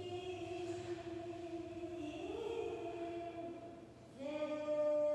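Korean traditional sori singing: a voice holds long, steady notes. It glides up to a higher note about two seconds in and back down a second later, then fades briefly and comes back louder on a new held note near the end.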